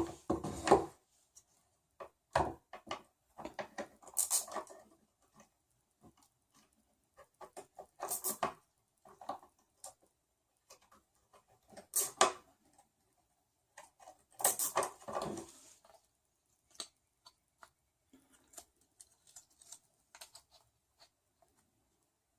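Nylon zip ties being threaded and pulled through their locks, each pull a short ratcheting zip, four times in all, between light clicks and knocks of plastic printer parts being handled.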